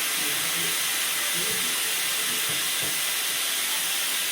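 Steady hiss of air rushing into a giant balloon as it is inflated, even and unbroken, with faint muffled voices underneath.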